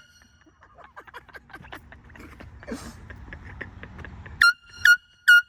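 Air horn blasted in three short, quick toots about a second apart near the end, following a few seconds of only faint background noise.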